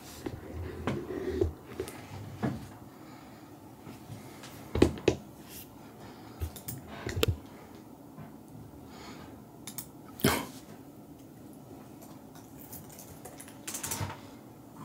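Handling noise: scattered knocks and clicks with soft fleece rustling as a person reaches over and moves the camera. The loudest knocks come about five and ten seconds in.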